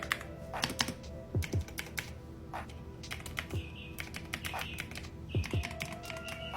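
Typing on a Magegee Light 100 keyboard: irregular keystroke clacks, some in quick clusters, over background music.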